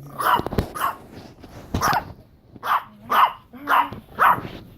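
A dog barking repeatedly, about six short barks coming roughly half a second apart, with a brief pause near the middle.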